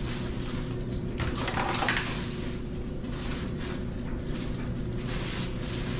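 Plastic waste bag rustling and a plastic drawer being handled as the bag is taken out of an automatic litter box, over a steady low hum. The rustling is strongest about a second in and again near the end.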